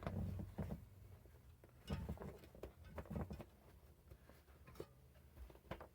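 Bicycle tyre being pressed back onto the wheel rim by hand: soft, irregular taps and rubbing of rubber against the rim, a few every second or so, over a low steady hum.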